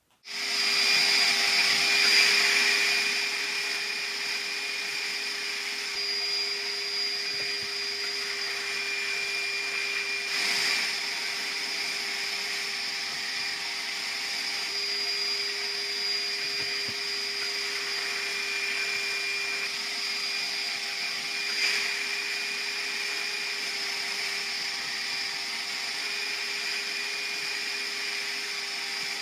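Small electric power tool switched on and running steadily with a level whine. It is loudest in the first few seconds, then settles, with brief louder moments about ten and twenty-two seconds in.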